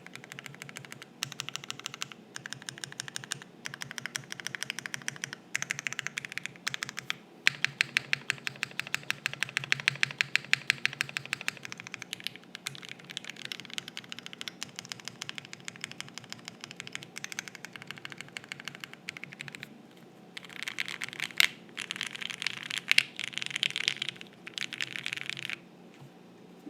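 Typing on a Think6.5 v2 mechanical keyboard with lubed JWK Giant v3 linear switches in a gasket-mounted POM plate, under GMK keycaps. The keystrokes come in bursts with short pauses, including a fast, even run of strokes about eight to twelve seconds in.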